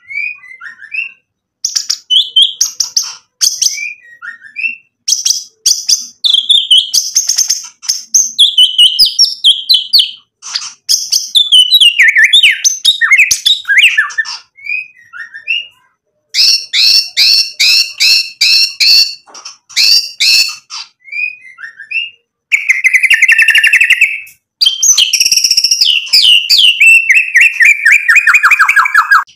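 White-rumped shama (murai batu) singing loudly in a varied string of whistled and chattering phrases. About two-thirds of the way through comes a run of evenly repeated notes, then a buzzy trill, and near the end a fast series of notes falling in pitch.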